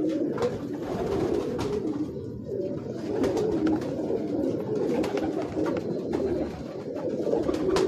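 Domestic pigeons cooing continuously, low warbling calls running into one another.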